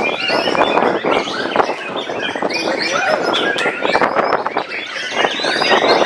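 White-rumped shamas (murai batu) singing at once, a dense, unbroken tangle of rapid whistles and chirps, over the background chatter of a crowd.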